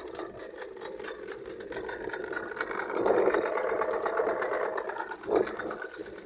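Small boat's engine running steadily, louder for a couple of seconds midway.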